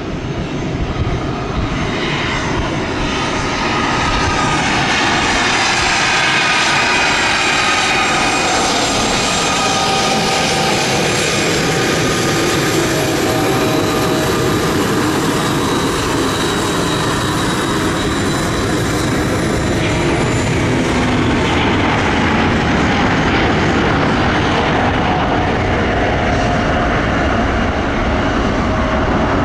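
Airbus A350-900's twin Rolls-Royce Trent XWB turbofans spooling up to takeoff thrust, growing louder over the first few seconds. The jet then holds a steady, loud roar with fan whine that slides in pitch as it rolls down the runway, lifting off near the end.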